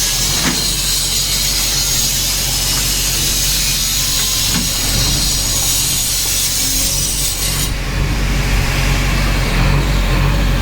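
JCB 3DX backhoe loader's diesel engine running steadily, overlaid by a harsh hissing, scraping noise that cuts off suddenly a little before the end.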